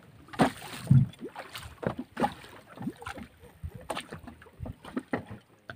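Irregular knocks, bumps and clicks of gear and bodies against a small fishing boat, the loudest a dull thump about a second in.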